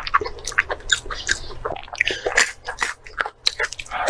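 A person chewing and biting food close to the microphone, mukbang style: quick, irregular wet smacks and clicks of the mouth.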